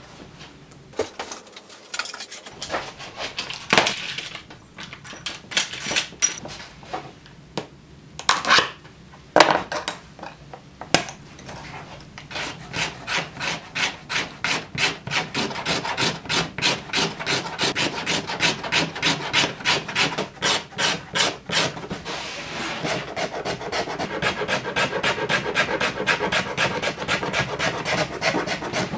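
Back-and-forth rubbing strokes of a hand tool on the flesh side of thick leather. A few scattered strokes come first, then from about twelve seconds in a steady rhythm of about three strokes a second.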